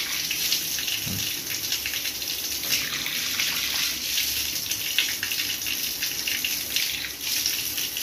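Water gushing in a strong, steady stream from the outlet of a newly bored well's pump, with a continuous splashing hiss.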